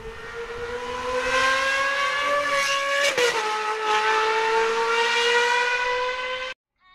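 High-revving sports car engine under hard acceleration, its pitch climbing steadily. About three seconds in there is a quick upshift, and the pitch drops and then climbs again. The sound cuts off abruptly near the end.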